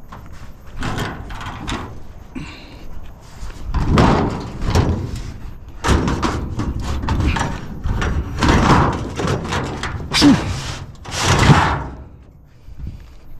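A string of knocks, bangs and clatters as scrap items are handled and dropped, several impacts a second or two apart, the loudest near the end.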